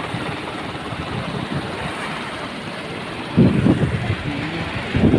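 Farm tractor's engine running under load as it hauls a fishing boat up the beach on a rope, mixed with steady surf. Loud gusts of wind hit the microphone a little past halfway and again near the end.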